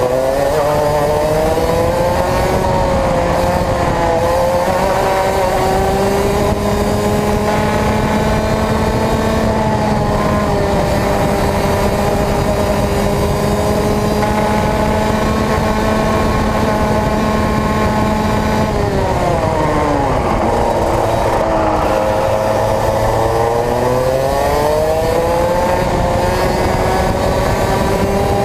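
Racing kart engine under hard acceleration: its pitch climbs over the first few seconds, then holds high and steady for about twelve seconds. About two-thirds of the way through it drops sharply, then climbs again.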